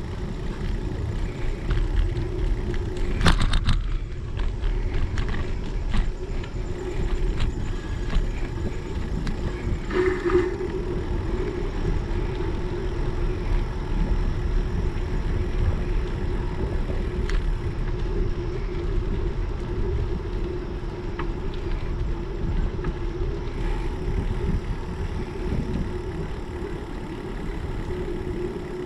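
Bicycle rolling along a paved path, heard through a GoPro camera's microphone: steady wind buffeting and tyre rumble with a constant low hum. A sharp rattle comes about three seconds in, and a briefer one about ten seconds in.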